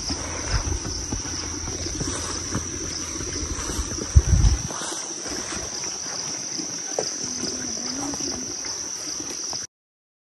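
Insects chirring: a steady, high-pitched drone, with low rumbling and knocks on the microphone and a loud thump about four seconds in. The sound cuts off suddenly near the end.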